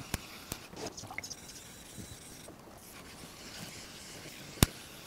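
Norton 220-grit water stone rubbed back and forth by hand over the wet steel top plate of a magnetic sine chuck, a faint gritty scraping as the plate is lapped flat. A few sharp clicks, the loudest near the end.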